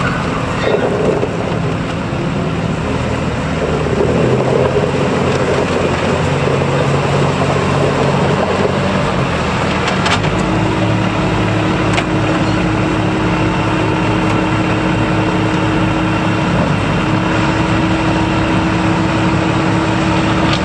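Massey Ferguson 1250 compact tractor's 34 hp Iseki diesel engine running as the tractor drives, changing in pitch. About halfway it settles into a steady idle heard up close.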